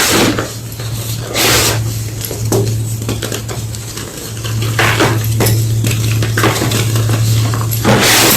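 Homemade gym chalk blocks being crushed and crumbled, crunching irregularly, with louder crunches every second or two over a steady low hum.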